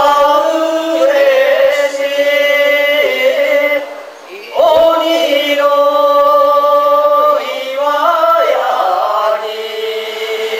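Several male voices chanting a kagura song in unison in long held notes, each line sliding up into its pitch. Two long phrases, with a short break about four seconds in.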